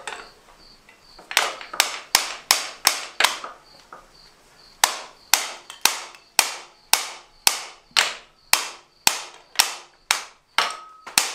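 A string of sharp electric cracks, typical of high-voltage ignition spark snapping to ground from a DuraSpark coil: a quick run of about six, a pause, then steady at about two a second. They signal that the ignition is firing while the engine is turned.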